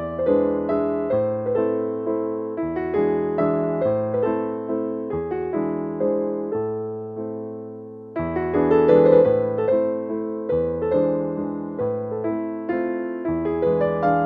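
Background piano music, a gentle melody in steady, evenly paced notes that dips briefly and swells again about two thirds of the way through.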